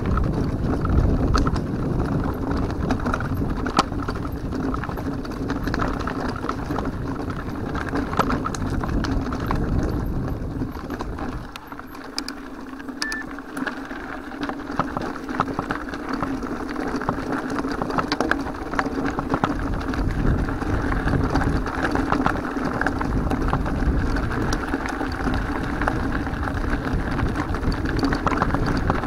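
Mountain bike riding over a rough dirt and gravel track, heard from the handlebars: continuous tyre rumble with the bike rattling and knocking over the bumps. The noise drops for a couple of seconds about twelve seconds in, then picks up again.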